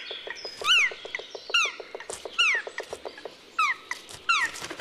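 Black woodpeckers at their nest hole giving short calls that slide down in pitch, repeated about once a second and sometimes in quick pairs. Under the calls runs a rapid train of light taps, about ten a second, from the bird chiselling out the nesting cavity.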